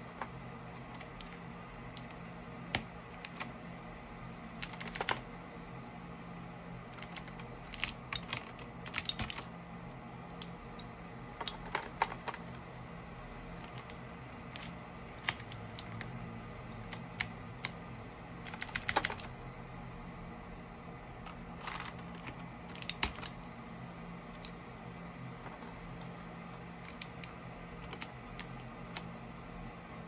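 Keys on a Keychron K8 Pro mechanical keyboard being pressed: scattered clacks, some single and some in short quick runs, with gaps of a second or more between them.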